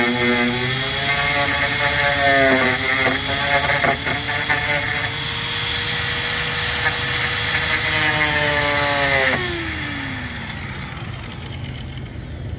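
Handheld electric power tool cutting, its motor whine dipping and rising in pitch as it bears into the cut, over a hiss of cutting noise. About nine seconds in it is switched off and spins down with a falling whine.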